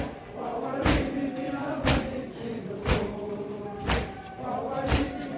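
Shia mourners beating their chests in unison (matam), one loud slap about every second, while voices chant a noha (lament) to the same beat.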